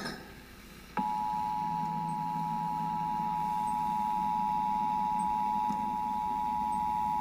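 Emergency Alert System attention signal: two close steady tones sounded together, starting about a second in and holding unbroken, marking the start of an emergency alert broadcast, here the nationwide EAN test.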